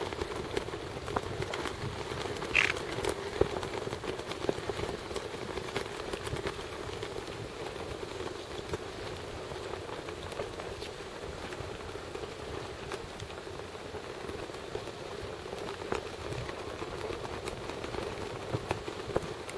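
Steady crackling outdoor ambience with scattered small clicks, and one brief high chirp about two and a half seconds in.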